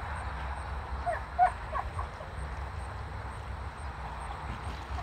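A quick cluster of short animal calls about a second in, the loudest near the middle of the cluster, over a steady low rumble.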